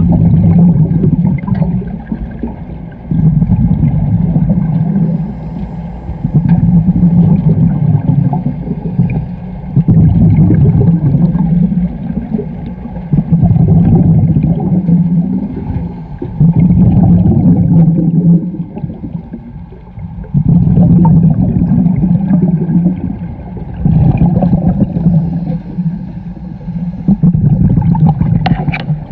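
Scuba diver breathing through a regulator underwater: a rumbling rush of exhaled bubbles about every three seconds, with quieter gaps between breaths.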